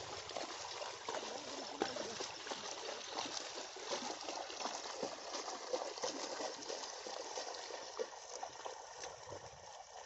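Muddy water sloshing and splashing as a pair of bullocks wade through a flooded paddy field, dragging a wooden board that churns the mud. A steady run of small, irregular splashes.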